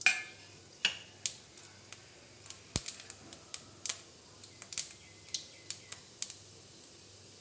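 Mustard seeds popping in hot oil in a steel kadai as they are tempered with urad and chana dal: scattered sharp pops, about a dozen, the loudest right at the start.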